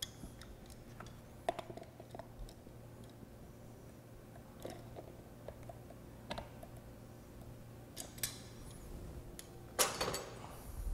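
Faint scattered clicks and handling noises as pliers tighten the cap of a liquid-tight cord grip on a grinder pump's level sensor housing, over a low steady hum. A louder, brief handling noise comes near the end.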